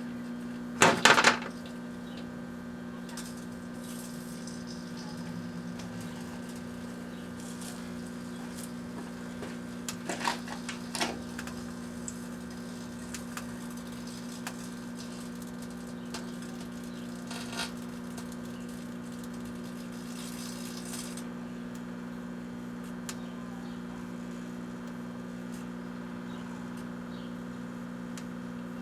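Kenmore microwave oven running with a steady hum while a Rubik's Cube heats inside. A loud burst of sharp pops comes about a second in, then smaller pops around ten seconds and another later on.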